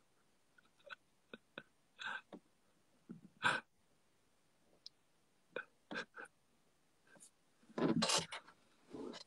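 Scattered soft clicks of a phone being handled, with a few short breathy bursts of quiet laughter and breath; the longest, loudest burst comes near the end.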